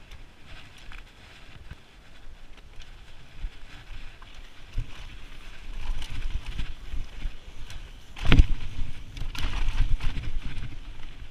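Wind rushing over the microphone with low rumbling and rattling knocks from a mountain bike riding down rough trail, growing louder after about five seconds, with one hard knock a little past eight seconds in.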